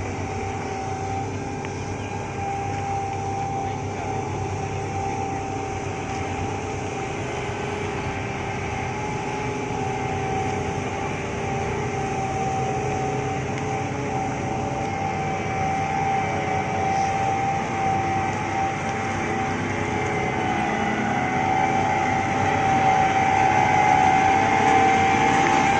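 Preet 987 combine harvester running: a steady drone of engine and machinery with a high steady whine over it, growing louder toward the end as the machine comes close.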